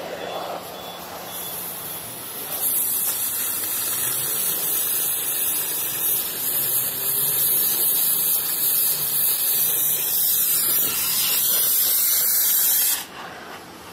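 Oxy-fuel gas cutting torch hissing as it cuts through steel. The hiss grows much louder about two and a half seconds in, holds steady, and drops off suddenly near the end.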